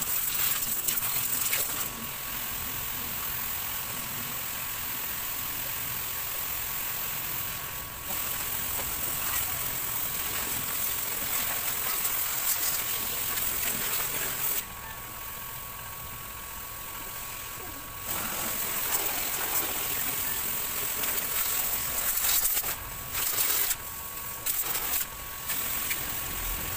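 Water hissing from a hand-held garden-hose spray nozzle as it sprays over an engine bay. The hiss stops for a few seconds past the middle and cuts on and off a few times near the end as the trigger is released and squeezed.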